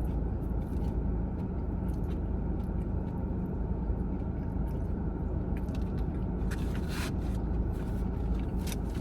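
Biting into and chewing a hot Cheetos–coated Korean corn dog, with crunching crackles in the second half, over a steady low rumble.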